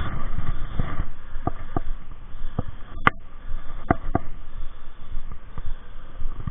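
Scattered light knocks and rustles, about eight in all, from a landing net holding a freshly caught rainbow trout as it is handled, over steady background noise.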